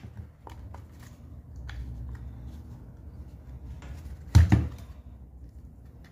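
Plastic housing of an electric drill handled and pressed together on a workbench: scattered small clicks and taps, with a loud double knock about four and a half seconds in, over a steady low rumble.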